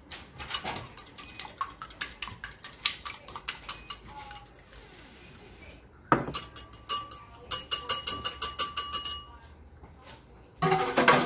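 Wire balloon whisk beating eggs in a ceramic bowl: rapid clinking of the wires against the bowl, about five or six strokes a second, in two bouts with a short pause between. A louder clatter comes near the end.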